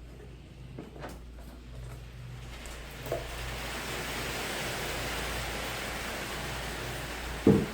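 A steady hiss starts about two and a half seconds in and runs for about five seconds. A sharp knock comes near the end, with a few light clicks earlier.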